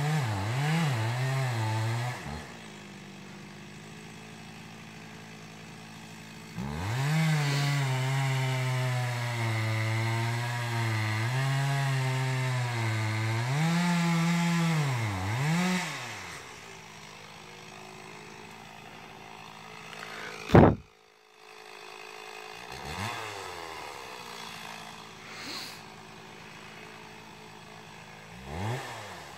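Two-stroke chainsaw felling a large beech: it runs hard in the cut with its pitch wavering under load, drops back to a steady idle, then cuts again for about ten seconds before idling once more. One sharp loud click comes about two-thirds of the way through, followed by a few short throttle blips, and the saw revs up again near the end.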